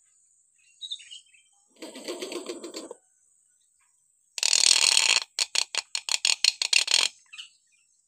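Hill myna calling: a few faint chirps, then a harsh rasping call about two seconds in. Near the middle comes a loud harsh burst, followed by a quick run of about ten short clipped notes, about six a second, that stops shortly before the end.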